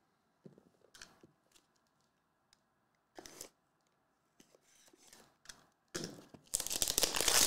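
Sealed trading-card box being handled on a mat: a few soft taps and scrapes, then about six seconds in, loud crinkling and tearing as its plastic shrink wrap is ripped open.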